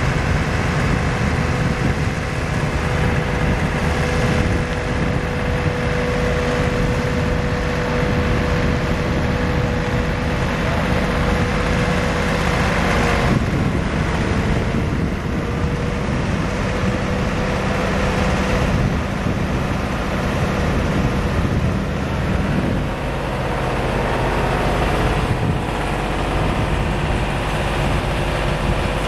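A diesel engine on a Mack boom truck running steadily, with a steady whine over it for much of the time.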